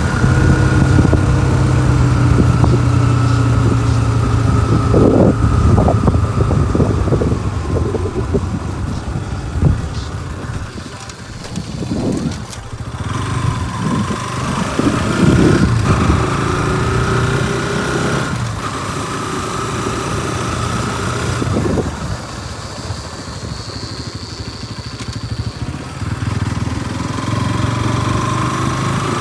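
Bajaj Pulsar NS200's single-cylinder engine through its stock exhaust, idling steadily and blipped several times with short throttle revs that fall back to idle.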